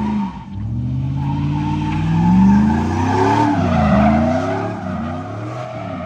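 Pickup truck doing a burnout in circles: the engine revs up and down several times while a rear tire spins and squeals on the pavement, loudest in the middle. Only one tire spins, a peg-leg burnout, because the differential is open and not welded.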